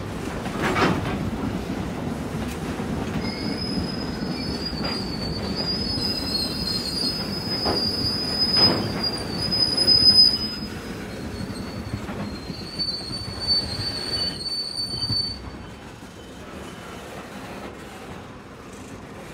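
Train wheels squealing in high, drawn-out tones against the rails as a train rolls slowly past, with a few sharp metallic clanks. The rolling noise dies down about 16 seconds in.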